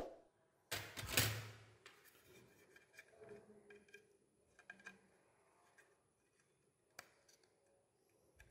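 Faint handling noise of a 2.5-inch SSD in the hands: a click at the start, a scraping rub about a second in, then light clicks and rubs of fingers on the drive's plastic casing.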